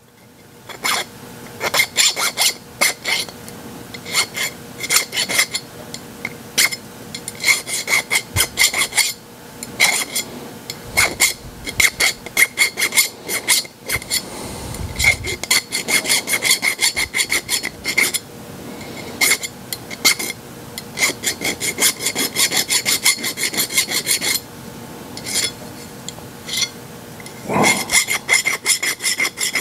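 Flat hand file worked along the edge of a small metal strip to knock off the burrs: quick rasping strokes in short runs, with a light metallic ring, broken by brief pauses.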